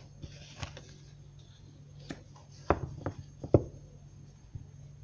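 Tarot cards being handled and laid on a cloth-covered table: a few sharp card clicks and taps, the loudest about three and a half seconds in.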